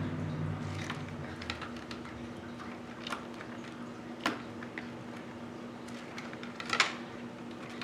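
Scattered clicks and snaps of hand tools and wire being worked at an electrical outlet box, the loudest a sharp snap near the end, over a steady low hum. A motor's whir dies away in the first second.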